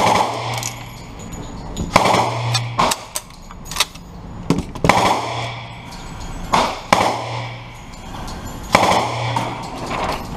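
Gunshots on an indoor range, single shots at irregular intervals about one every two seconds with smaller cracks between, each followed by a low boom and echo.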